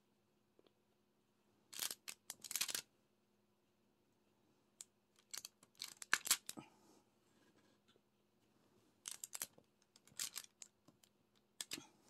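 Rattling and clicking of diamond painting drills and tools, in four short bursts of about a second each, over a faint steady hum.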